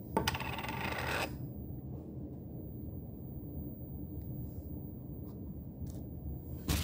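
A makeup brush rubbing briskly across a baked eyeshadow pan for about a second, a dry scratching sound. Then only a low steady background hum, with a short click near the end.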